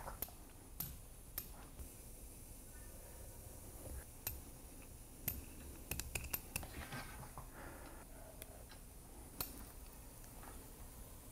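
Scattered light clicks and taps, a quick cluster about six seconds in, from clamps and tools being handled on the bench.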